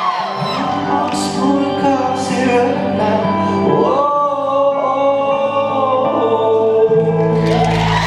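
Live music: several voices singing in harmony, holding long notes over instruments as the song ends. Crowd cheering starts near the end.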